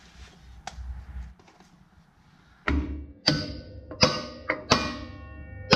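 About six sharp metal knocks in the second half, each followed by a brief metallic ring, as parts are knocked and fitted onto the hub of a John Deere 750 drill's steel disc opener.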